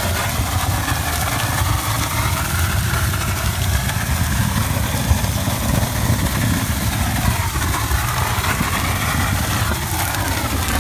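Shotcrete equipment running steadily: a constant low engine drone with an even hiss over it.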